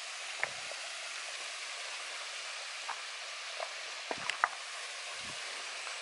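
Steady hiss of falling water from a waterfall and stream, with a few footsteps and small stone knocks on the rocky stream bed.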